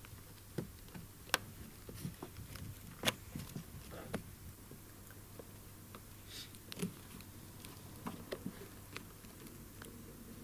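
Scattered sharp clicks and taps of a screwdriver prying at the hidden plastic clips under the side edge of a Mercedes W211's cowl trim panel. The two loudest come about one and three seconds in.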